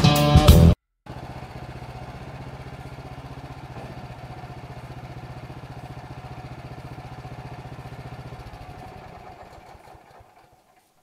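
Woodland Mills HM126 sawmill's gasoline engine running steadily, then shut off about eight and a half seconds in and running down to a stop.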